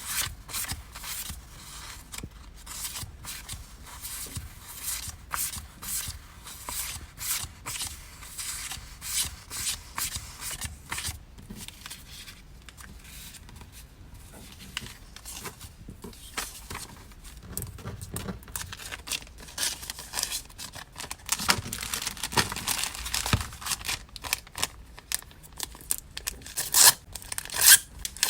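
Packing materials being handled by hand: paper and plastic packaging crinkling and tearing in a quick, irregular run of crackles, with a series of louder sharp tears or snips near the end.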